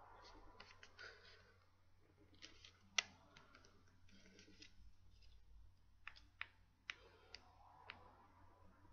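Faint clicks and light rustles of paper being handled as fingers press and align a folded paper binding tab along a magazine's spine. One sharper tick comes about three seconds in, and a few more near the end.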